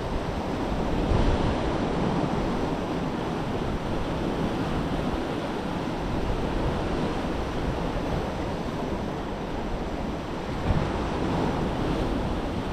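Sea waves washing steadily on the shore, with wind buffeting the microphone.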